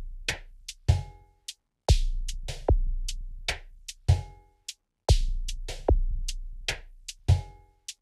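Korg Volca Drum playing a looping electronic beat: deep, slowly decaying kick hits and short, sharp clicky percussion, with brief pitched blips on some hits. The pattern repeats about every three seconds.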